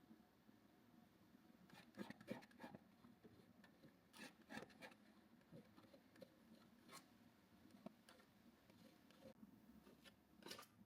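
Faint scratching and light taps of a paintbrush working acrylic paint on canvas, in short, irregular strokes.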